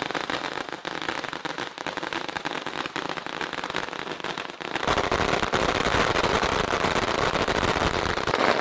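A long string of red Chinese firecrackers going off in a rapid, unbroken crackle of small bangs, louder and closer from about five seconds in.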